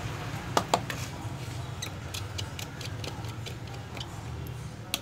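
Small clicks and ticks from a Nokia 1200 mobile phone's plastic parts being handled during disassembly: two sharper clicks just over half a second in, then a run of faint quick ticks, over a steady low hum.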